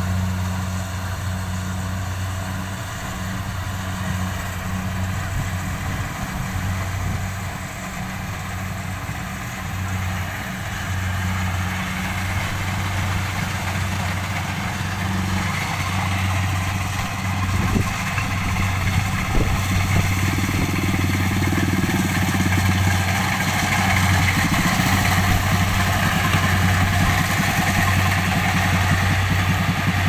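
Rice combine harvester running steadily as it cuts. The engine's low hum grows louder in the second half as the machine comes closer, along with a higher rushing noise.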